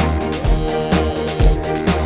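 Background music with a steady beat: a deep kick drum about twice a second, with cymbal ticks between and sustained bass and chord tones.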